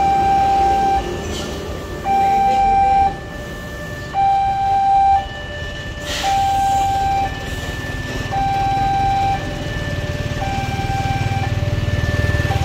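Railway level-crossing warning alarm sounding while the barrier is down: an electronic signal switching between a low tone and a higher tone about every second. A low engine rumble grows louder near the end.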